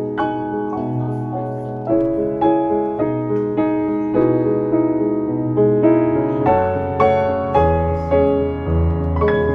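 Background piano music: a gentle melody of notes struck about twice a second, joined by deeper bass notes about two-thirds of the way through.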